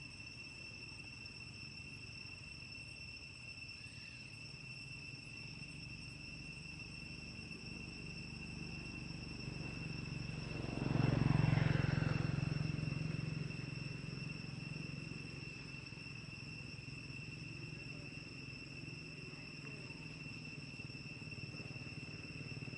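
Insects trilling in a steady, unbroken high-pitched drone. Beneath it runs a low rumble that swells to its loudest about halfway through, then fades.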